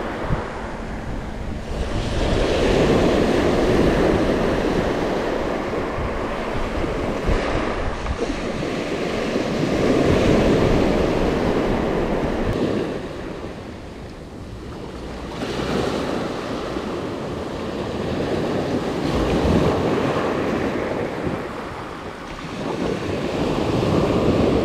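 Small waves breaking and washing up a pebble beach, the surf swelling and ebbing every several seconds.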